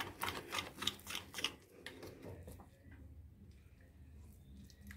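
A spoon clicking and scraping against a glass bowl in quick strokes while stirring gram flour and water into a batter. The clicks are rapid for about the first two seconds, then the stirring goes quieter.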